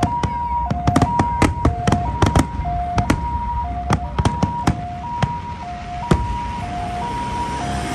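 Two-tone ambulance siren stepping between a higher and a lower note about once a second, under loud, irregular bangs and cracks of aerial firework shells bursting overhead. The bangs come thickest in the first few seconds and thin out after about five seconds.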